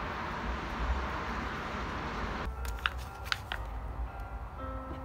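Steady outdoor noise with a low rumble, like traffic, cuts off abruptly about halfway through. A quieter indoor stretch follows, with a few light clicks and faint background music.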